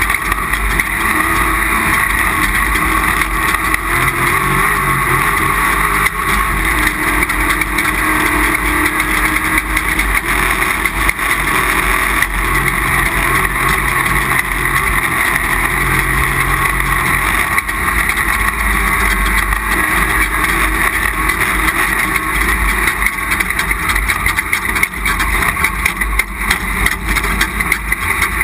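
Off-road race vehicle running hard through a lap of a desert race. The engine is loud and continuous, mixed with a dense, steady rush of noise.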